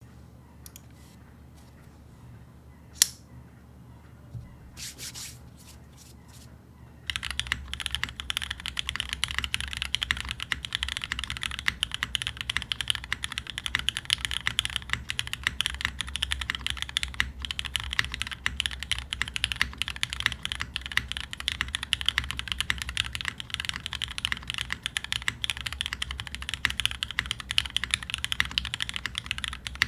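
Custom mechanical keyboard with an aluminum plate, lubed Cherry MX Hyperglide Black linear switches and GMK keycaps being typed on. A few scattered key clicks come first, then steady fast typing from about seven seconds in.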